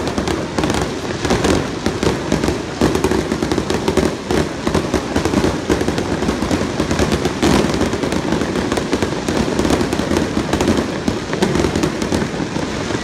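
Aerial firework shells bursting in a dense, unbroken barrage of sharp booms and bangs, one on top of another.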